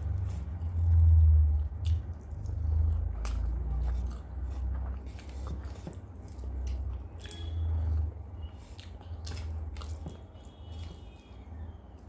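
Close-miked chewing of a mouthful of rice and curry, with many small wet mouth clicks, while fingers mix rice on the plate.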